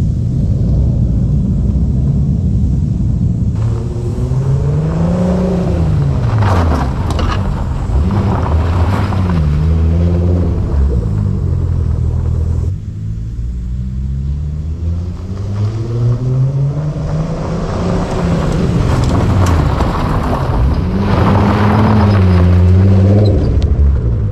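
VW Corrado's engine driving under load, its pitch rising as it accelerates and dropping back several times, as in gear changes and lifting off, over a steady low road rumble.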